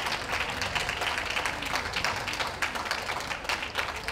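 Ringside audience applauding: many hands clapping steadily.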